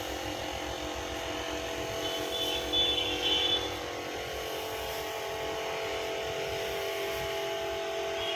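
Steady machine hum with several held tones over a low rumble, with a few brief high chirps around two to three seconds in.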